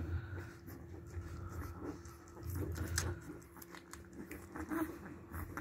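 Puppies suckling at their mother's belly, a run of small irregular wet clicks and smacks from their mouths.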